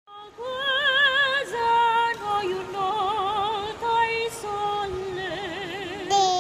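A woman gondolier sings in an operatic style: slow held notes with a wide vibrato, climbing louder and higher near the end.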